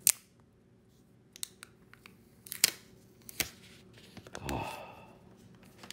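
Plastic protective film being peeled off a new Google Pixel phone: a few sharp clicks and snaps as the film tab is picked and lifted, smaller crackles between, and a longer rustle about four and a half seconds in as the sheet comes away.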